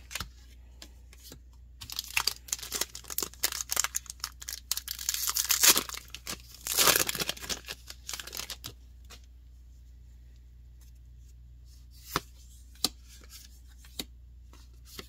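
A foil booster pack wrapper being crinkled and torn open, a dense crackling that runs for several seconds and peaks midway. A few light clicks follow near the end.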